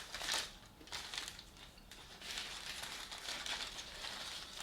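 Paper sandwich wrapper crinkling and rustling as it is handled and opened: short bursts near the start and about a second in, then steadier rustling from about two seconds in.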